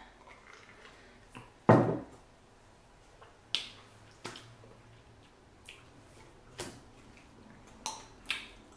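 Close-miked eating: soft, scattered mouth clicks and smacks while chewing, with one louder knock about two seconds in as a drink tumbler is set down on the table.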